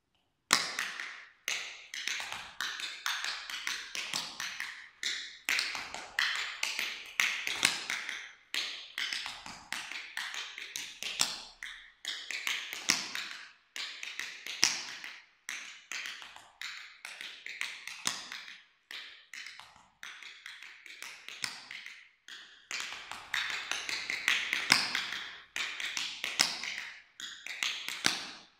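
Tap shoes striking a parquet wooden floor in cramp roll timesteps: stamps, hops, springs and quick four-beat cramp rolls. The sharp taps come in rhythmic clusters with short gaps between phrases.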